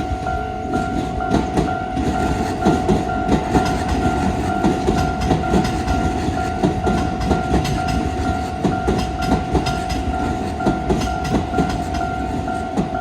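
Electric commuter train passing over a Japanese level crossing, its wheels clattering irregularly over the rail joints with a heavy rumble. The crossing's warning bell sounds one steady tone throughout.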